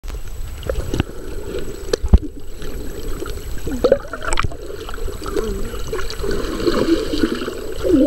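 Muffled underwater sound from a camera held under the sea: a low rumble of moving water with gurgling and a few sharp knocks, the loudest about two seconds in.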